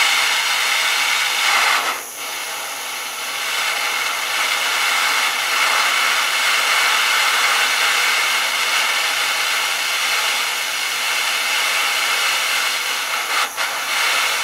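Propane hand torch burning with a steady hiss, its flame heating the tip of a steel screwdriver to harden it.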